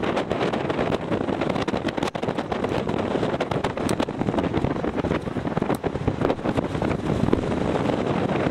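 Strong wind buffeting the microphone: a loud, rough rumble with many short, sharp gust spikes.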